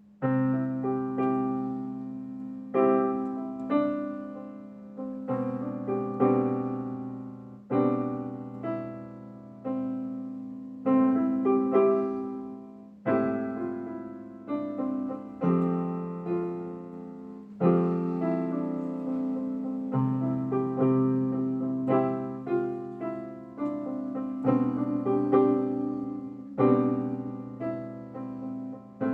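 A beginner playing simple power chords on a piano-type keyboard. Each chord is struck and left to ring and fade before the next, about one every second or so.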